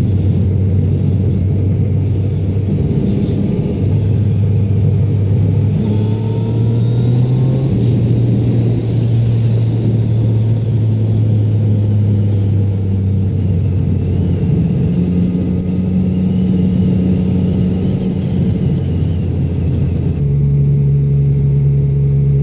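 Motorcycle engine running steadily on the move, with a continuous rush of wind and road noise. The engine note steps up and down as the throttle and gears change, and shifts again near the end.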